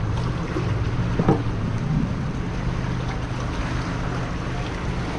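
A steady low droning hum under wind and water noise, with a single short knock about a second in.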